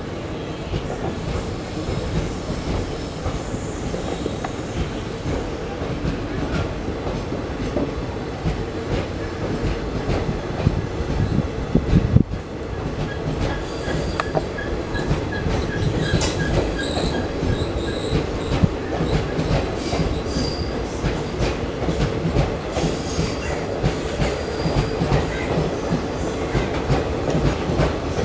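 Blue ICF passenger coaches of an Indian Railways express train passing close by at speed: a steady rumble and clatter of steel wheels on the rails, with one sharp loud knock about twelve seconds in. Faint high-pitched wheel squeals come in and out through the second half.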